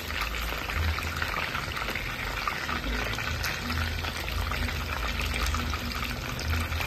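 Hot oil sizzling and crackling steadily in a frying pan as pieces of food are deep-fried and turned with a fork.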